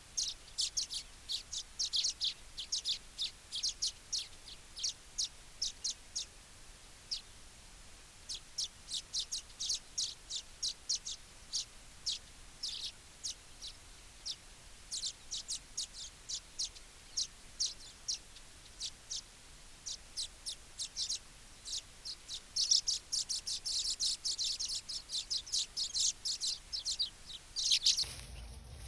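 Baya weavers chirping: a steady run of short, high chirps, a few each second, growing denser and louder in the last several seconds.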